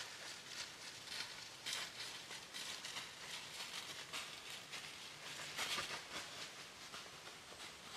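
White-tailed deer walking through dry fallen leaves: an irregular run of crunching, rustling steps, loudest about six seconds in.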